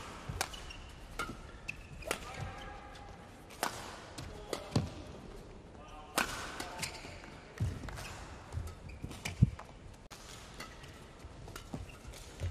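Badminton singles rally: sharp cracks of rackets striking the shuttlecock at irregular intervals, with short squeaks of court shoes on the floor and thudding footsteps between the hits.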